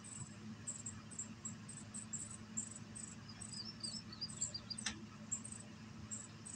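Outdoor ambience of insects making short, high chirps that repeat irregularly over a low steady hum. A brief run of quick bird notes comes about three seconds in, and a single sharp click just before five seconds.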